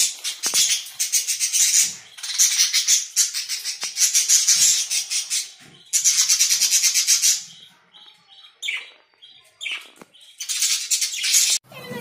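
A flock of budgerigars chattering in dense, rapid, high-pitched bursts, then a few separate short chirps before a last burst of chatter near the end.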